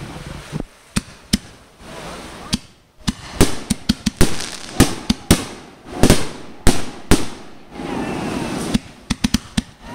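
Aerial fireworks bursting: an irregular run of some twenty sharp bangs, several coming in quick clusters.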